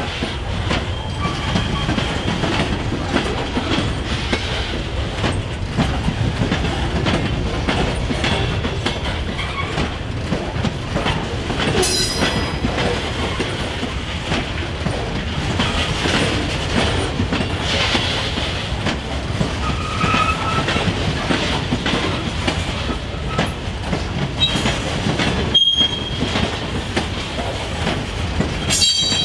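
Freight train cars rolling past: a steady rumble of wheels on rail, with clicking over rail joints and brief high-pitched wheel squeal now and then.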